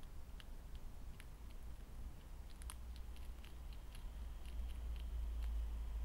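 A European hedgehog chewing and crunching food from a dish: irregular small clicks and crunches, a few at a time, over a steady low hum.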